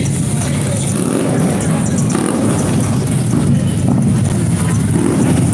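Motorcycle engines running in street traffic, a steady low rumble, as a big touring motorcycle rides past.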